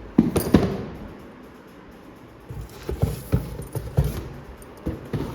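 Cardboard boxes and packages being handled and set down: a series of irregular knocks and bumps, loudest in the first second and again around the middle.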